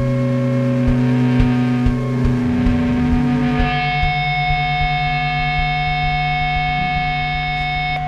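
Rock band playing live, instrumental: distorted electric guitars through effects hold long droning notes over low thumps in the first couple of seconds. About four seconds in, the high wash drops away and a steady sustained chord rings on.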